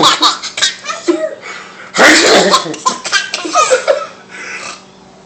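Baby laughing in two bouts: one at the start, fading by about a second and a half in, and another from about two seconds to about four seconds in.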